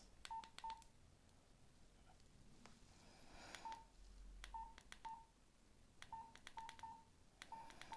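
Nokia X2-01 keypad being pressed about ten times, in irregular bunches. Each press gives a faint click and a short keypad beep as the phone's menus are stepped through.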